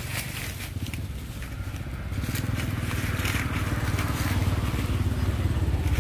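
Dry leaves crunching and rustling as monkeys scuffle on the leaf litter, over a low engine rumble that grows louder after about two seconds.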